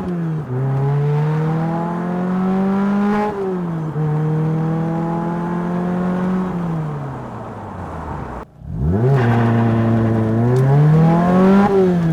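2006 Lotus Exige's four-cylinder engine accelerating hard through the gears: the revs climb and drop sharply at two upshifts, then fall away as the car slows. After a brief dropout about eight and a half seconds in, the revs climb quickly again and fall near the end.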